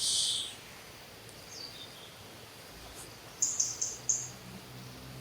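Bird chirps: a bright chirp right at the start, a faint falling whistle a little later, and a quick run of four high chirps near the end, over a steady outdoor background hiss.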